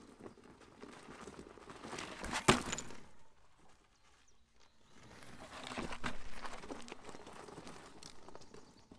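Veteran Patton electric unicycle riding past over a dirt and gravel trail, its tyre crunching, with a sharp knock as it goes by about two and a half seconds in. It passes a second time from about five seconds in, loudest near six seconds, then fades as it rides away.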